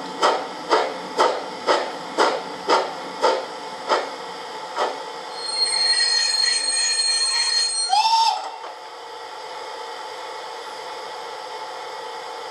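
Sound module of a gauge 1 BR 91 steam locomotive model: steam chuffs about two a second, slowing and fading out over the first five seconds as the locomotive comes to a stop. Then a high, steady squeal for about two and a half seconds, ending in a short burst about eight seconds in; a faint steady hiss remains.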